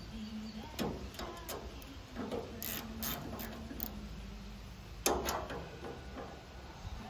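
Light metal clicks and clinks of a screwdriver and bolts as new knife sections are bolted onto the sickle bar of a New Holland 489 haybine, with a louder clank about five seconds in.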